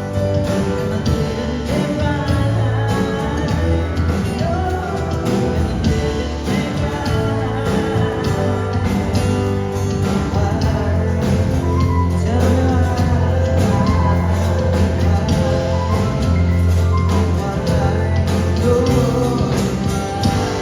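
Live band playing a song with a singer, over a steady bass line.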